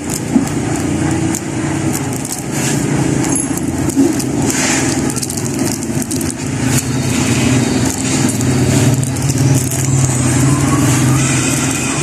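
Pepper grinder crushing peppercorns, a crackly grinding over a steady low hum.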